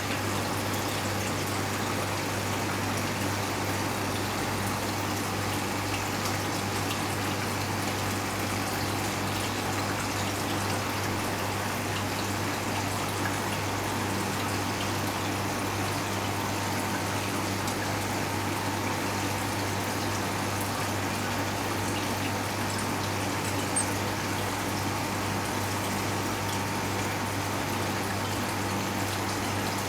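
Steady running-water noise over a constant low hum, unchanging throughout.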